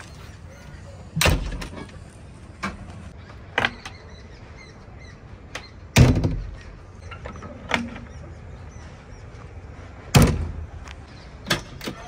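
Heavy diesel machinery running steadily, with three heavy thuds about four seconds apart and a few lighter knocks between them: a backhoe loader working mud.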